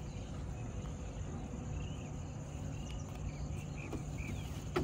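Outdoor background: a steady low rumble with a few faint, short high chirps around the middle, and a sharp click near the end.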